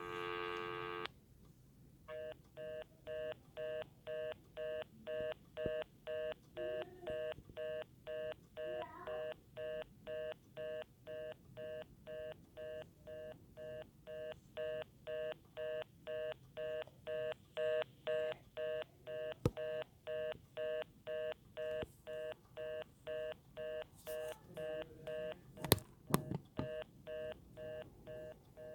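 Phone ringtone of short two-tone electronic beeps repeating at about two a second, played through the phone's speaker. A different buzzy tone cuts off about a second in, and a couple of sharp knocks come near the end.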